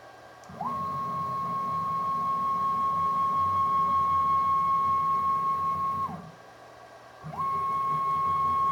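CNC-converted milling machine axis drive motor turning a ballscrew under Mach3 control, with a high steady whine and low mechanical hum. It ramps up quickly, runs at constant speed for about five seconds, ramps down and stops, then starts a second move about a second later.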